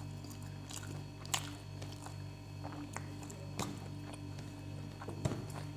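Quiet sounds of eating rice and curry by hand: soft mixing of rice on the plates and a few light clicks of fingers against the plates, over a steady low drone.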